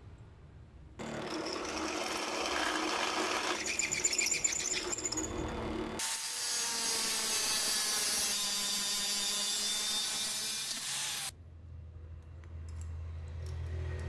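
Angle grinder with a cut-off disc cutting through steel stock clamped in a vise, a loud, bright, hissing screech that cuts off sharply a few seconds before the end. Before it, from about a second in, another loud stretch of power-tool work on the metal.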